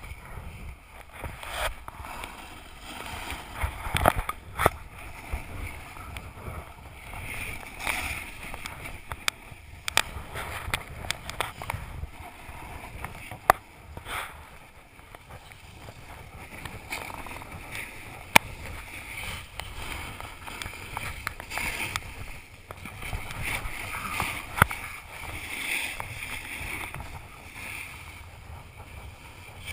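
Rushing scrape of snowboard edges over packed snow while riding fast downhill, with wind rumbling on the action camera's microphone. A few sharp knocks stand out, one about 13 seconds in and another about 18 seconds in.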